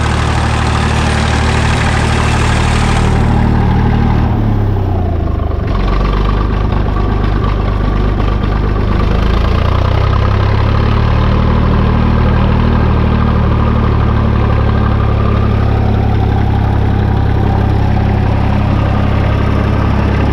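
IMT 533 tractor's three-cylinder diesel engine idling steadily on freshly overhauled injectors. Its speed dips briefly about four seconds in and picks up again a few seconds later.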